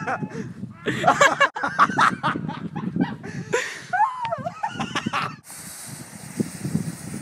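Excited laughing and yelping voices in quick bursts for about five seconds, then a sudden cut to a steady hiss.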